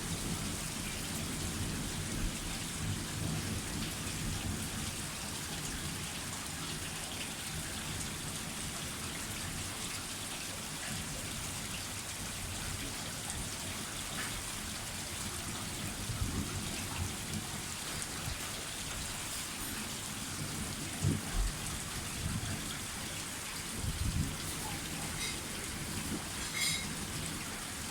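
Rain falling hard, a steady even hiss, with a few short low thumps in the second half.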